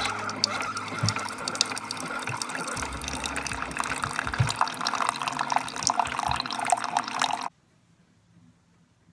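Keurig 2.0 single-cup coffee brewer dispensing coffee into a ceramic mug: a steady pouring stream with many small crackles, cutting off suddenly about seven and a half seconds in.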